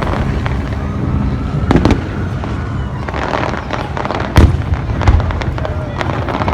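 Aerial fireworks display: shells bursting in quick succession, deep booms over a continuous crackle, with the loudest bang about four and a half seconds in.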